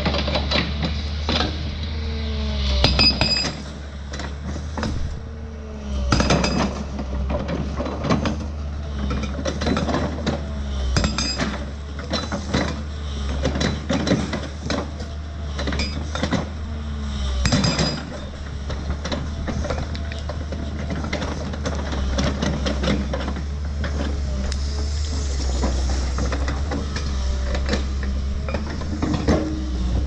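New Holland excavator's diesel engine running steadily under a string of irregular metallic clanks and knocks as its hydraulic breaker chisel works against rocks and stumps.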